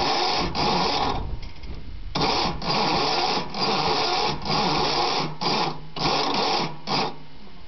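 Riding lawnmower's engine being cranked over with the key in a series of bursts, about seven in all, each half a second to a second long with brief pauses between them, a steady low hum running under the middle ones.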